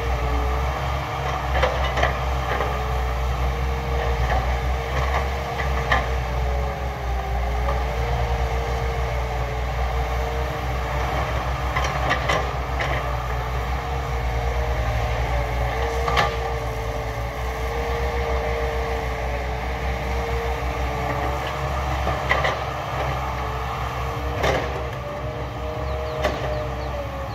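Caterpillar hydraulic excavator working: its diesel engine runs under load with a steady hydraulic whine that wavers up and down in pitch as the boom and bucket move. Occasional clanks from the bucket and soil going into the dump truck bed.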